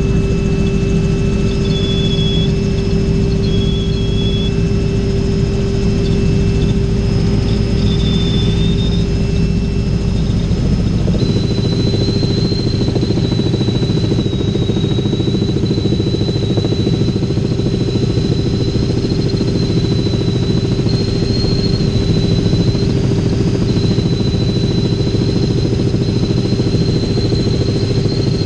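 Robinson R66 helicopter in flight, heard inside the cabin: the steady drone of the turbine engine and rotor with a high whine. About eleven seconds in the deepest rumble drops away and the high whine steps up slightly.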